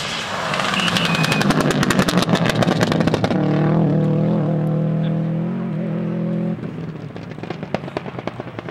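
Subaru Impreza rally car's turbocharged flat-four engine driven hard past the microphone, with a rapid crackle of pops over it for the first few seconds. About three seconds in it settles to a steady held note, which cuts off sharply about six and a half seconds in. Scattered crackling pops follow off the throttle.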